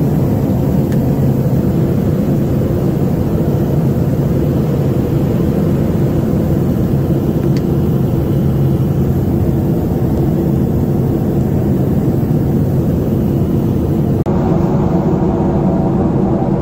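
Aircraft engine drone and air noise heard inside the passenger cabin, running steadily during the final approach and landing. Near the end the sound changes suddenly and a steady whine comes in while the plane is on the runway.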